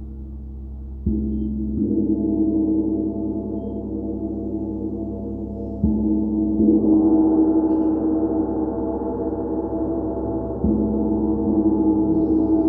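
Gong played for gong therapy: struck about a second in, again just after, then around six and eleven seconds in. Each stroke lifts a layered, sustained ringing that carries on unbroken between strokes.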